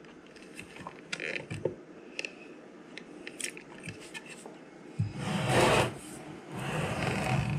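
Handling noise from a studio monitor: faint clicks and rustles as fingers work at its back-panel terminal plate. About five seconds in come louder stretches of scraping and rubbing as the speaker cabinet is turned around on the desk.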